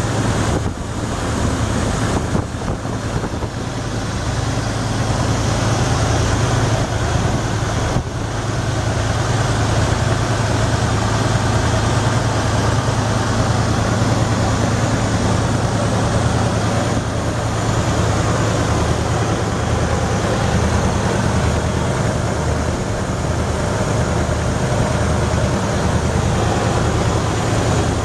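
1987 Ford F250's 5.0-litre V8 gas engine idling steadily, heard close up at the open engine bay.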